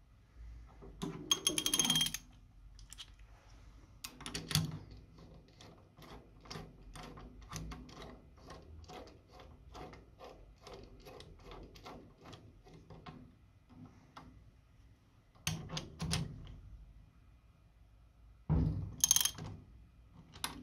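Socket ratchet clicking steadily, about three clicks a second, as a nut is run down on the cylinder head of a Honda 125 cc single-cylinder engine. Louder metal clanks of the tool and socket being fitted come about a second in and again near the end.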